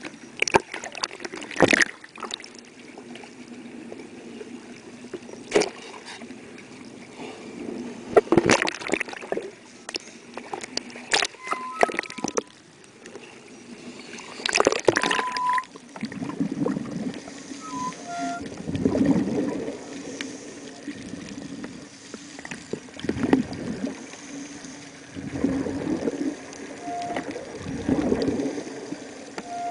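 Seawater sloshing and splashing against a camera's waterproof housing as it dips in and out of the surface, with sharp crackles and clicks. Later it turns to muffled underwater swishes coming about every two seconds.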